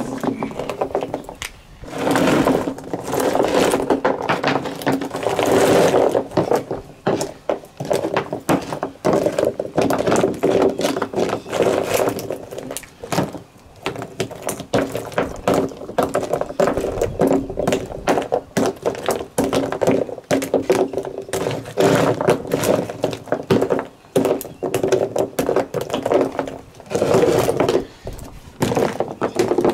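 Oyster shells clacking and scraping on a wooden table as live oysters are sorted and counted into piles by hand: a rapid, irregular run of hard clicks and knocks over a steady low hum.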